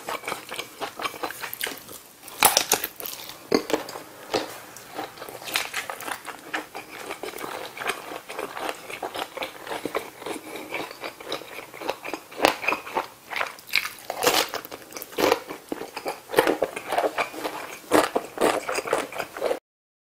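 A person chewing and biting into kielbasa sausage and young radish kimchi: a dense run of sharp clicks, bites and wet mouth sounds, in louder clusters every few seconds. The sound cuts off suddenly just before the end.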